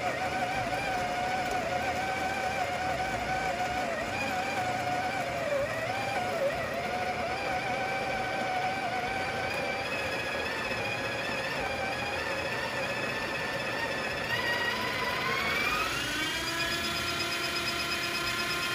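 Breville Smart Grinder Pro's conical burr grinder motor grinding a single dose of coffee beans, a steady whine that wavers in pitch under load. About fifteen seconds in the whine rises and settles at a higher, steadier pitch as the last beans pass through and the burrs run empty.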